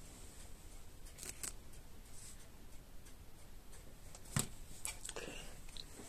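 Pen scratching on paper in a few short strokes, with a soft knock about four seconds in followed by a quick run of scraping strokes.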